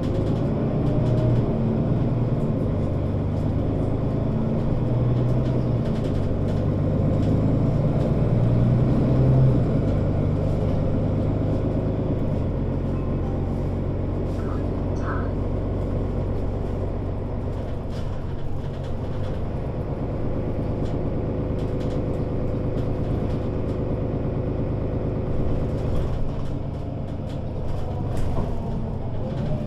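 Diesel engine of a Mercedes-Benz O 530 Citaro city bus running under way. Its note rises and falls through the first ten seconds, holds a steady pitch in the middle and falls away near the end, with light rattles throughout.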